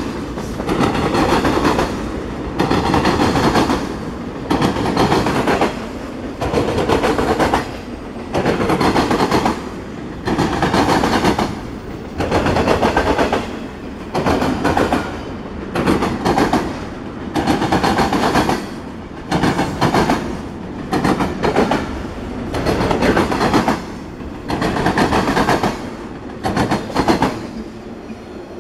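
Double-stack intermodal freight cars rolling past: a loud clatter and rumble of steel wheels on rail that surges about every second and a half as each car goes by. It drops off near the end as the last car clears.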